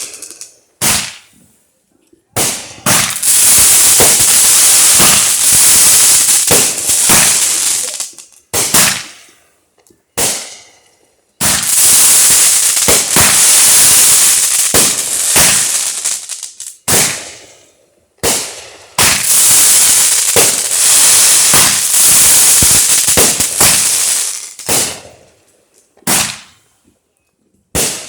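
Phantom Aerial Avalanche 500-gram, 25-shot fireworks cake firing in volleys: sharp launch shots, each followed by a few seconds of dense, loud crackling from the breaks, with short pauses between volleys.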